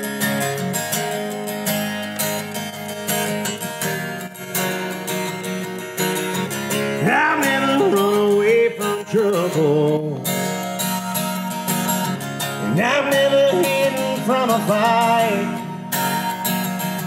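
Acoustic guitar strummed live in a country-rock song, with a voice rising and wavering over it twice, about seven seconds in and again near the end.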